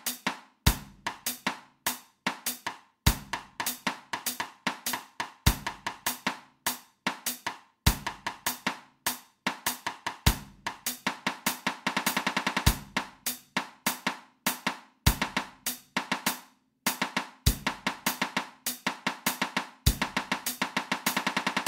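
Snare drum playing a three-against-two polyrhythm exercise, quick groups of triplet and shorter figures, with a bass drum stroke on a steady pulse about every two and a half seconds.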